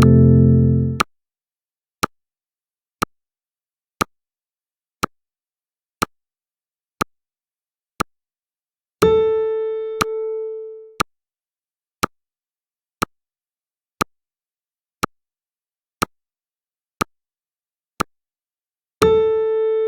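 Electronic countdown-timer sound effects: a sharp tick every second, with a pitched chime that rings out and fades every ten seconds, about 9 s and 19 s in. A loud, low buzzing tone cuts off about a second in.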